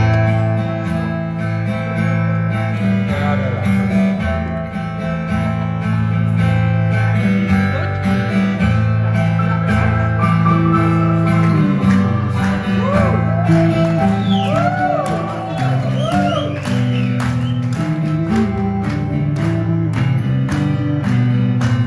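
Live band playing a song's instrumental introduction on acoustic guitar, bass, electric guitar and keyboards, starting abruptly all together. About halfway through, a lead line with notes bending in pitch comes in over the steady strummed guitar and bass.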